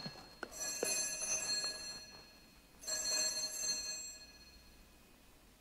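Altar bells (Sanctus bells) rung at the elevation of the chalice. The bells ring twice, about half a second in and again about three seconds in, each ring fading away. The tail of an earlier ring dies away at the start.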